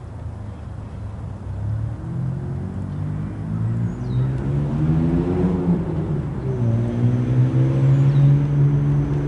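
Diesel locomotive engine running as a train approaches, growing louder. Its pitch rises to a peak about halfway through, dips, then holds steady.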